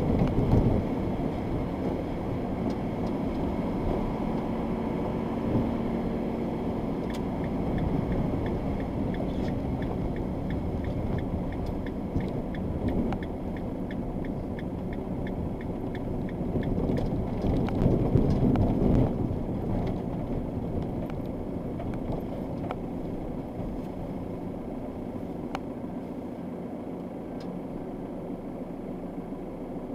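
Vehicle driving on a snowy road, heard from inside the cabin: engine and tyre noise that grows quieter over the last third as the vehicle slows to a stop and idles. A regular light ticking runs for several seconds in the middle.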